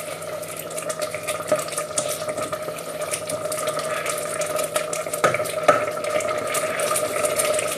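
Risotto rice simmering in stock in a pan, a steady bubbling with small crackles, over a steady background hum.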